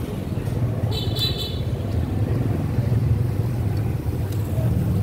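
Steady low rumble of street traffic, with a brief high-pitched tone about a second in.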